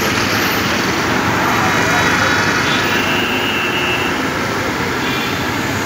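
Steady road traffic noise on a busy city street, with engines of passing auto-rickshaws and vans, and voices of people nearby.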